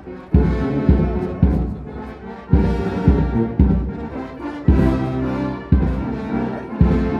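Brass band playing a march outdoors, with a bass drum striking about once a second under the brass.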